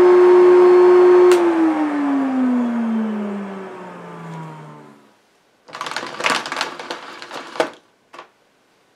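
1980s Hitachi Stowaway bagless cylinder vacuum cleaner running with a steady whine, then switched off with a click a little over a second in; the motor's whine falls in pitch and fades as it spins down over about four seconds. Then a couple of seconds of handling rustles and a short click near the end.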